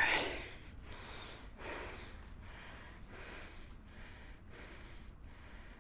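A man breathing hard in heavy, unvoiced breaths about every second, the loudest one right at the start and the rest fainter. He is winded from hauling in a heavy bull shark.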